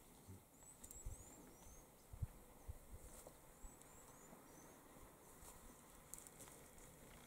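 Near silence: faint bush ambience with a few groups of short, high bird chirps and some soft low thumps.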